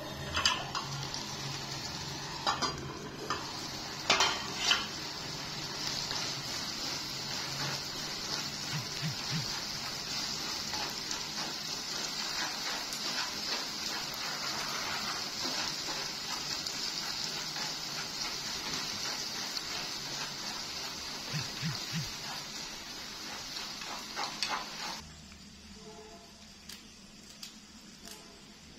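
Corn sizzling in a frying pan, with a utensil stirring and clinking against the pan a few times in the first few seconds. The sizzling cuts off suddenly about 25 seconds in.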